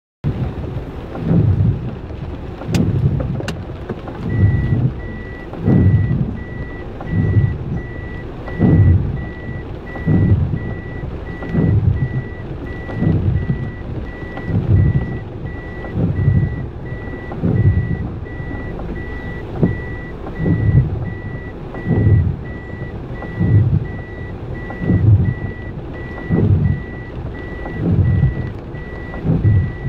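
A vehicle's reversing alarm beeping at a steady even rate, starting about four seconds in. Under it, a low pulsing sound comes about every second and a half over a constant rushing background.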